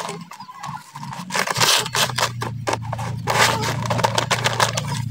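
Fingers scraping and pressing crumbly potting soil in a black plastic polybag, with irregular crackling rustles of soil and plastic. A low steady hum comes in a bit over a second in.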